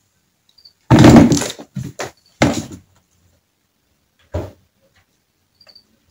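Empty clear plastic storage boxes knocking and clattering on a wooden parquet floor as cats shove and tip them. There is a loud clatter about a second in, a few more knocks over the next two seconds, and one single knock a couple of seconds later.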